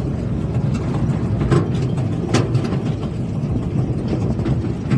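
Vehicle engine running steadily with a low rumble while riding, with a couple of sharp knocks, the clearest about two and a half seconds in.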